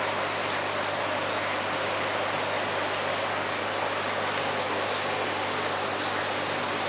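Steady rushing of aquarium water stirred by an air stone bubbling in the tank, with a faint low hum underneath.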